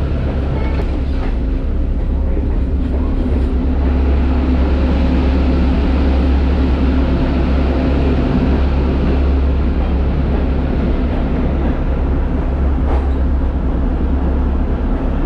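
Passenger train running, heard from on board: a loud, steady rumble of the rail car rolling on the track.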